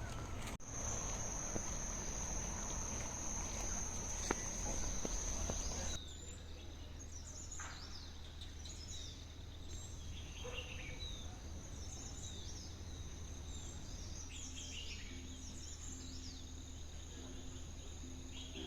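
Forest ambience: insects keep up a steady high-pitched drone, with birds calling in short chirps from about six seconds in.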